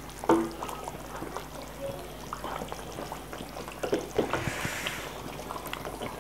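Wooden ladle stirring thin, hot beef gravy in a metal pot, with the liquid sloshing and dribbling. The ladle knocks against the pot once just after the start and twice about four seconds in.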